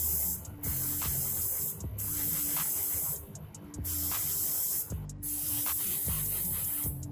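Airbrush spraying gray surfacer primer in repeated hissing bursts of about a second each, with short pauses between them.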